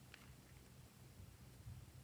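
Near silence: faint low hum, with a single soft click just after the start.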